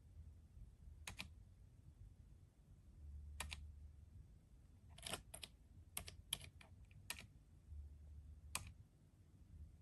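Faint, irregular keystrokes on a GK GAMAKAY TK75 V2 silent mechanical keyboard: a few single presses, with a quick run of several about five to seven seconds in.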